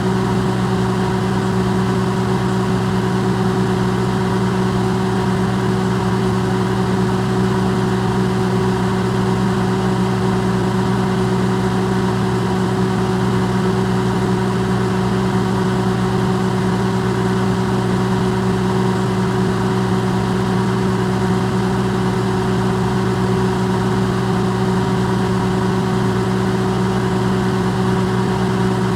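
Electrolux microwave oven running, its sound recorded amplified: a steady, unchanging hum of low tones with an even hiss over it.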